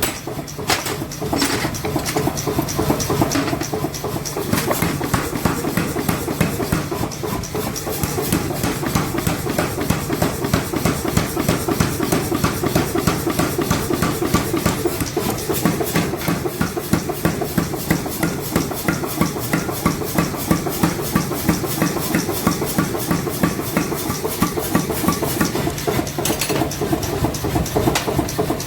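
Forging hammer striking hot steel over and over in a fast, even rhythm, with a steady running hum beneath the blows, typical of a mechanical power hammer at work.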